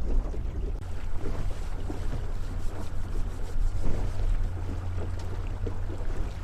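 Boat motor running steadily, a low even hum, with wind and water noise over it.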